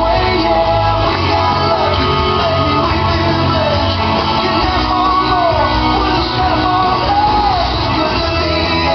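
A sung song with a band, played over a hall's loudspeakers, with the vocal line rising and falling throughout.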